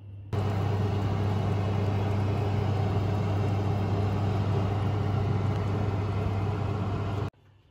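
An oven's fan running with a steady whir over a low hum; it starts just after the beginning and cuts off abruptly near the end.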